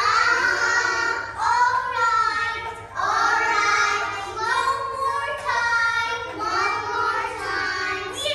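A group of young children singing a song together, in short phrases with brief breaks between them.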